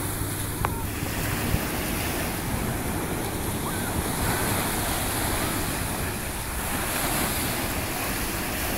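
Ocean surf washing in and breaking in shallow water at the shoreline, a steady rushing wash, with wind buffeting the microphone.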